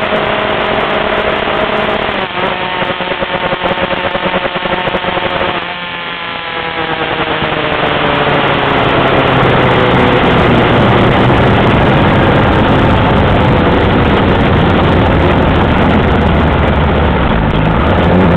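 Car engine heard from inside the cabin while driving on a racetrack, its pitch shifting with throttle and gear changes over steady road noise. It dips and goes quieter around six seconds in, then runs louder and steadier.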